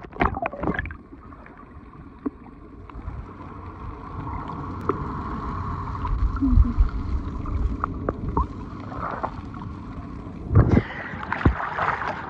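Muffled underwater water noise in shallow sea: a low churning wash with scattered small clicks, slowly growing louder. About ten seconds in there is a splash as the camera breaks the surface, and the sound opens out into brighter lapping water and wind.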